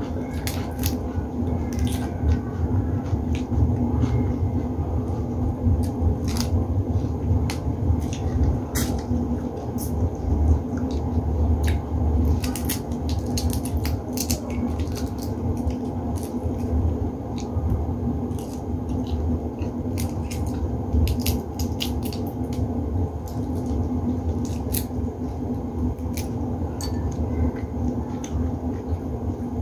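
Cooked shrimp shells being peeled apart by hand and eaten close to the microphone: many sharp clicks and crackles of shell and chewing, scattered irregularly, over a steady low hum.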